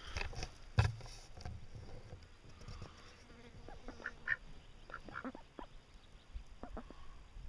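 Ducks calling with short quacks, a handful of them from about four seconds in. Before them, water splashes in the first second and a half, with one sharp knock about a second in.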